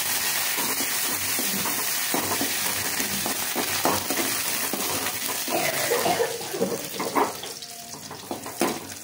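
Chopped onions, green chillies and curry leaves sizzling in hot oil in an aluminium kadai, with a steady hiss. A metal ladle stirs them, scraping and clicking against the pan.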